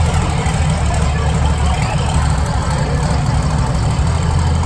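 Engine of an extreme off-road tube-frame buggy idling: a steady, deep rumble with no revving.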